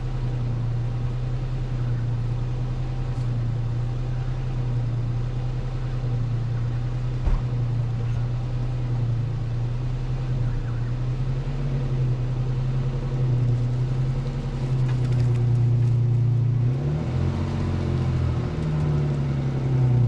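Four-wheel-drive vehicle's engine running steadily at low revs, its pitch rising and falling near the end as it is worked harder, pulling on a rope tied to a tree. A single short click about seven seconds in.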